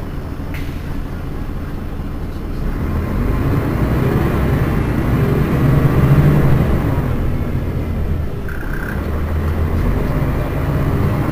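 Mercedes-Benz Citaro city bus's diesel engine running, building up in level to a peak about six seconds in and then easing off. A short high beep sounds about eight and a half seconds in.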